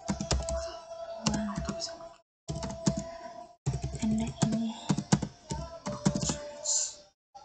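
Computer keyboard being typed on in quick, irregular key clicks. The sound cuts out completely for a moment a few times.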